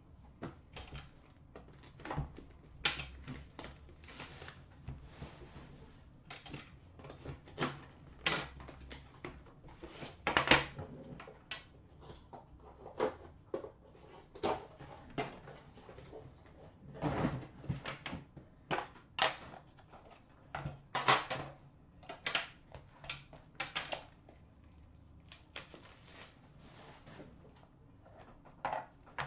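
Irregular clicks, taps and knocks of a metal Upper Deck The Cup hockey card tin and its packaging being handled, set down on a glass counter and opened, with the sharpest knocks around a third of the way in and again past halfway.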